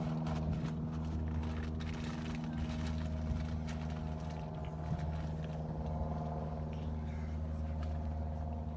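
Steady low machine hum at one fixed pitch, with a few faint clicks.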